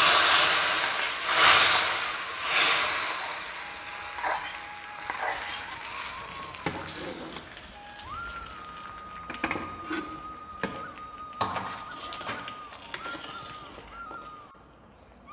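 Hot tempering oil with fried neem flowers, mustard seeds and dried chillies poured into boiling tamarind rasam: a loud sizzle for the first few seconds that dies away. After that, a metal ladle scrapes and taps against the iron kadai and the pot as the rasam is stirred.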